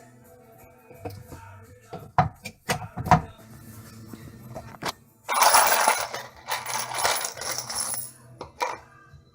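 Sharp clinks and knocks of screws and hard dishwasher parts being handled during disassembly. In the middle comes about three seconds of harsh scraping and rattling, the loudest part. Faint background music runs underneath.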